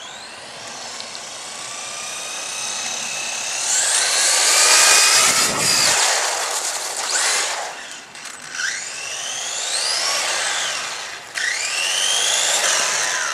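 Electric RC car's motor whining, sweeping up and down in pitch again and again as the car accelerates, brakes and drifts, over a rushing noise, loudest a few seconds in.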